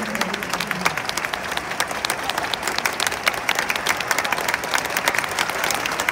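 Stadium crowd applauding, with many sharp hand claps close to the microphone over a steady wash of clapping from the stands.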